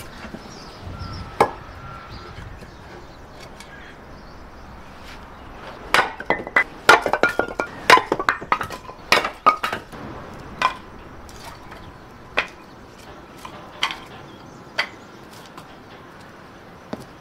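A series of sharp knocks and clatters: one early knock, then a quick run of them for about four seconds, then single knocks every second or two.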